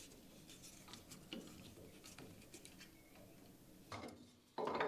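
Faint light ticks and taps as a steel rule and a fence are handled against a bandsaw's metal table while a cut is set up, with two louder brief handling noises near the end.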